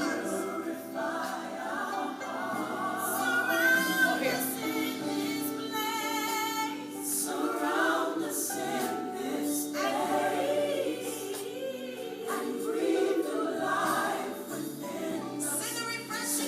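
A choir singing a gospel worship song, several voices together with musical accompaniment.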